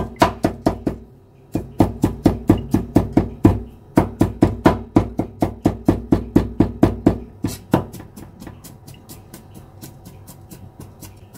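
Steel cleaver mincing garlic and shallots on a thick round wooden chopping block: rapid, even knocks about three or four a second, with a short pause about a second in. For the last few seconds the strokes turn much lighter and quieter.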